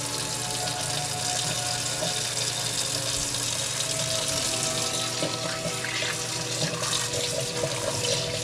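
Water running steadily from a tap into a sink, used to rinse freshly caught smelt while they are cleaned.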